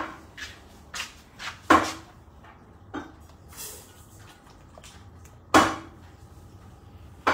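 A string of sharp, irregular clacks and knocks, the loudest about five and a half seconds in, from wooden chopsticks and handling knocking against an aluminium stockpot of boiled meat.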